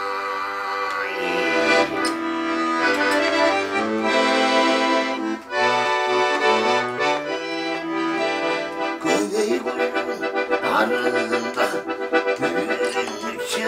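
Bayan, a Russian chromatic button accordion, playing an instrumental passage: held chords for the first nine seconds or so, then quicker, shorter notes.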